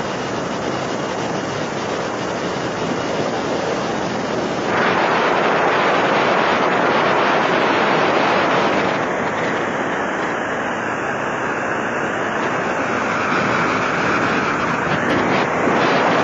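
Steady rushing roar of wind and aircraft noise, as heard from a plane or helicopter in flight. It grows louder and brighter about a third of the way in.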